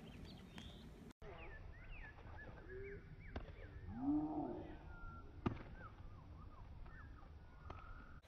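Birds calling outdoors, with many short rising and falling chirps and one louder, lower call about four seconds in. Two sharp knocks land about two seconds apart in the middle.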